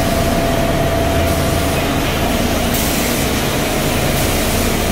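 Enerpac hydraulic pump for a torque wrench running with a steady mechanical hum, and a thin whine that fades about two seconds in.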